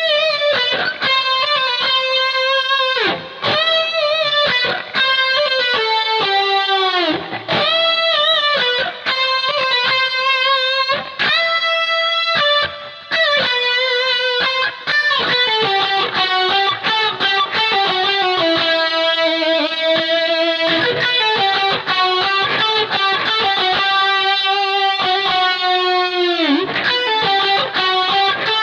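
Overdriven electric guitar lead from a BC Rich Gunslinger, played through a Gallien-Krueger 250ML combo amp's built-in speakers with an Ibanez Metal Screamer overdrive, plus reverb and delay. The notes are long and sustained, and many bend or slide in pitch. Near the end one note dips and comes back up.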